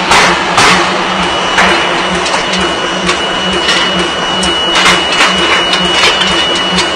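Forging machinery running with a steady hum and a thin high whine, broken by short sharp bursts at irregular intervals: a few in the first second, then more from about four seconds in.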